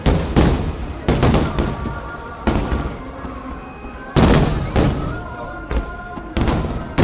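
Aerial fireworks shells bursting in a rapid, irregular series of booms and cracks, each trailing off in echo, with the loudest bursts about half a second and about four seconds in.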